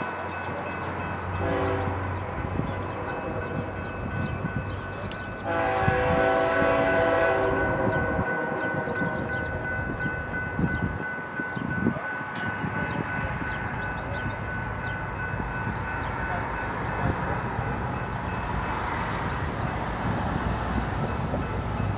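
Diesel locomotive air horn sounding two blasts, the second louder, over the steady rumble of a passing train.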